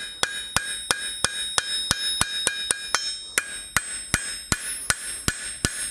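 Hand hammer striking hot steel stock on an anvil in a steady rhythm of about three blows a second, the anvil ringing between blows. This is the shaping of a forged roasting fork's handle: the centre ridge and the diamond-section sides.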